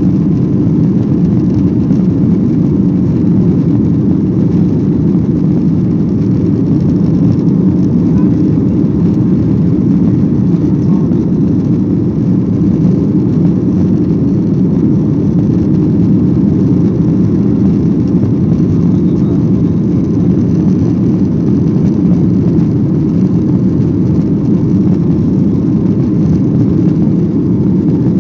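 Steady low drone inside the cabin of a Boeing 737-800 climbing after takeoff: its CFM56-7B turbofan engines and the rush of air past the fuselage, with the deep rumble strongest and no change in level.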